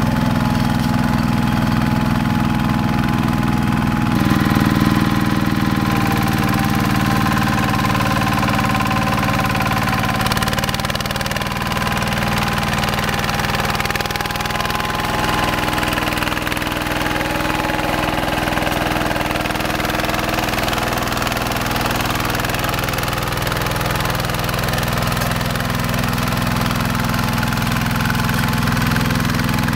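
Two-wheel hand tractor's single-cylinder diesel engine running steadily under load, pulling cage wheels through paddy mud. Its pitch shifts a little about 4 seconds in and again around 10 seconds in.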